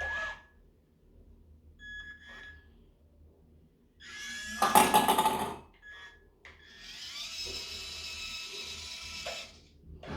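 Small electric motors and gears of a 1/32-scale Siku Control 32 Liebherr RC excavator whirring in bursts: a short loud burst about four seconds in, then a steadier whine lasting about three seconds. A few short electronic beeps come before the first burst.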